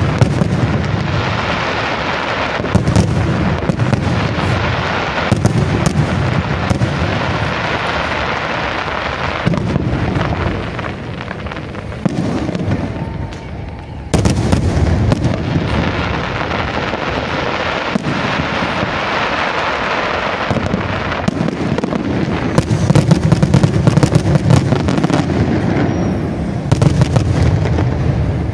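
Professional fireworks display: aerial shells bursting in rapid, overlapping volleys of booms and crackle. About halfway through the firing eases off briefly, then a loud burst starts it again, and it builds to its densest barrage later on.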